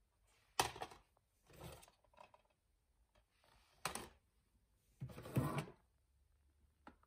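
Plastic DVD cases being handled and shuffled, with a few sharp clacks as cases knock together and softer rubbing in between.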